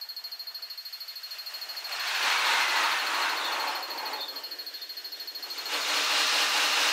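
Tokyu Oimachi Line electric train passing over an elevated bridge, played at six times speed: its running noise comes as two sped-up rushing surges, about two and six seconds in. A fast, steady pulsing high tone runs underneath.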